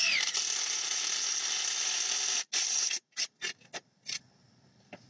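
Handheld power drill with a metal-cutting bit boring through a metal guitar scale-length ruler: a steady high drilling whine for about two and a half seconds, a brief stop, then several short bursts as the trigger is blipped.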